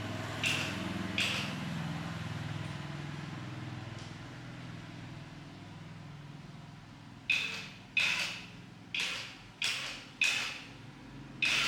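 Metal struck sharply, each blow ringing briefly: two blows near the start, then after a pause six more about one a second in the second half. A low steady hum runs under them.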